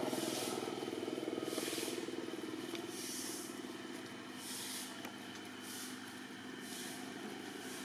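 A motor vehicle's engine hum fading away, with a soft high hiss that swells and dies about once every second and a half.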